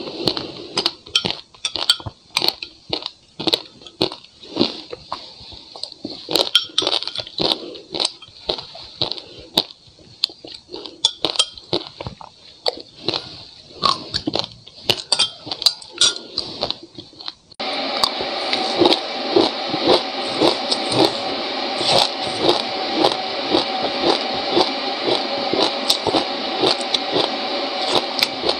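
Close-miked crunching as frozen passionfruit and ice are bitten and chewed, in irregular crackling bites. About two-thirds of the way through it cuts suddenly to a steadier, louder run of rapid crunching and squishing from frozen seeds.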